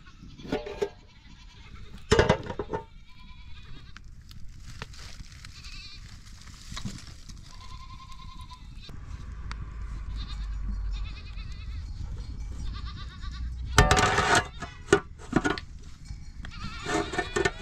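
Goats bleating, several short calls, loudest in the first few seconds and again over the last few seconds, with a low rumble in between.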